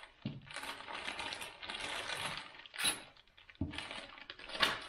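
Clear plastic bag of trolling-motor mounting hardware rustling while the metal bolts inside clink together, with two sharper clinks, one about three seconds in and one near the end.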